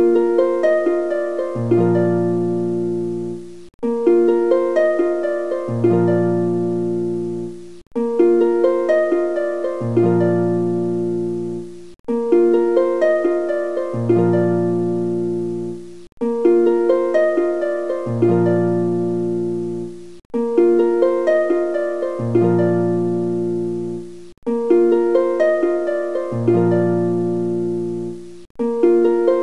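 Instrumental background music: a short phrase of plucked notes that repeats about every four seconds, with a brief break in the sound between repeats.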